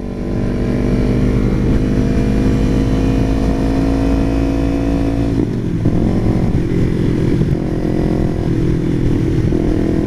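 Small sport motorcycle with an aftermarket full exhaust pulling in gear, its engine note climbing slowly, then dropping at a gear change about five seconds in and pulling on again. Wind rumble on the helmet microphone underneath.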